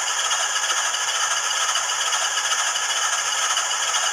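Small speaker of an HO-scale DCC sound decoder playing a steady locomotive running sound, thin and hissy, with little low end.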